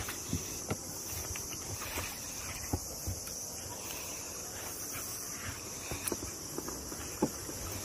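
Light, irregular knocks and taps from the kayak and the angler's handling of the rod and reel, over a steady high hiss.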